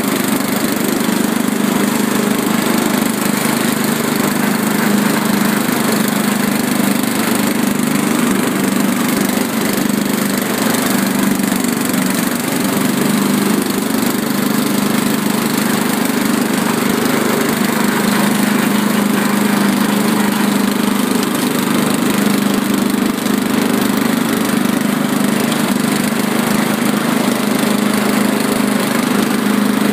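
Riding lawn mower's engine running at a steady speed, a constant low hum that holds even.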